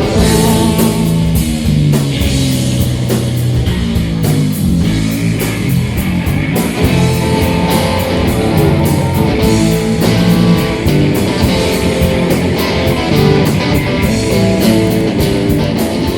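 A live rock band playing, with electric guitar, bass and a drum kit whose cymbals strike at a steady beat, recorded on a Tascam DR-40 handheld recorder.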